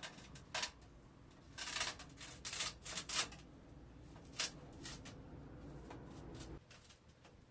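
A run of short scrapes and rustles from handling building materials, most of them packed together in the first half, with a low hum underneath that cuts off near the end.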